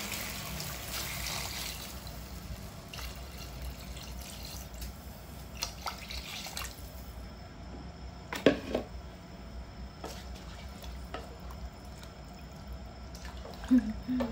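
A pot of chicken broth for tinola simmering, bubbling and popping softly, with a hiss that fades over the first couple of seconds. A few short, sharp knocks or splashes stand out, the loudest about eight seconds in and another near the end.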